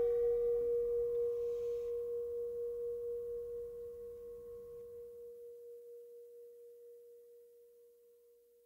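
Singing bowl ringing out: one steady tone with a gentle pulse. Its higher overtones die away within the first few seconds, and the tone fades slowly to almost nothing. A faint low rumble beneath it fades out about five seconds in.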